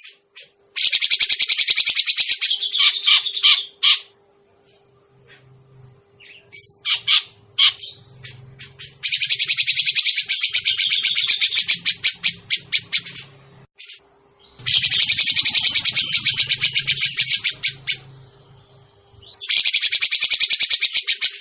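Cucak jenggot (grey-cheeked bulbul) calling, as played for a bird-trapping lure. Four long bursts of rapid, high chattering notes, with a few short scattered calls between them.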